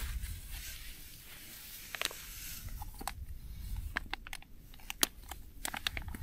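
Packaging crinkling and rustling as it is handled and opened by hand, with irregular sharp crackles throughout.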